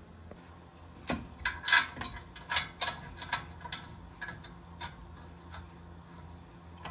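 Metal caliper bracket bolts clicking and clinking against the bracket and steering knuckle as they are threaded in by hand: a run of about a dozen irregular sharp clicks, loudest a couple of seconds in, dying away by about five seconds.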